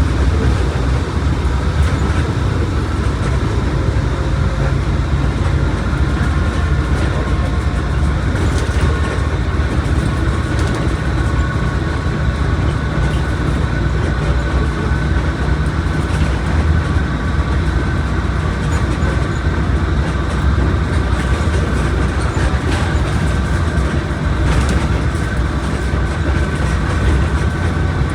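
Mercedes-Benz OF1721 BlueTec 5 bus under way, with a steady heavy low rumble of engine and road noise. A faint high whine sits above it and rises slowly in pitch.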